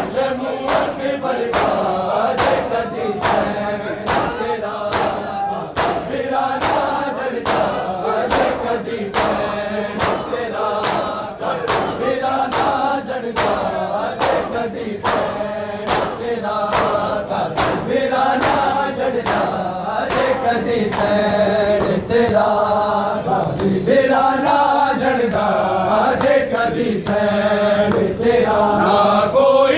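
A nauha chanted in unison by a crowd of male mourners, over the steady beat of matam: many hands slapping bare chests together, roughly every two-thirds of a second.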